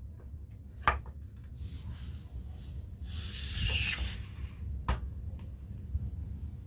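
Marbles rolling along a marble-run track with a rubbing rumble, two sharp clicks of marbles striking the track, one about a second in and one near five seconds, and a brief hissing rush around three to four seconds.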